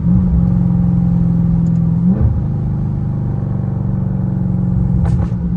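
Dodge Charger Scat Pack's 392 HEMI V8 with catless mid-pipes, heard from inside the cabin while driving: a loud, deep, steady exhaust drone. It swells at the start, breaks briefly about two seconds in, then holds steady.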